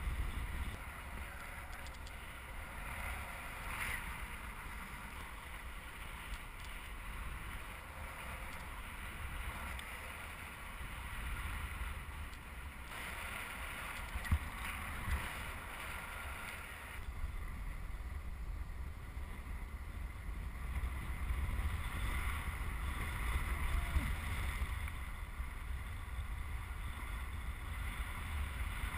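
Airflow buffeting a GoPro's microphone during paraglider flight: a steady low wind rumble with a hiss that swells and eases every few seconds.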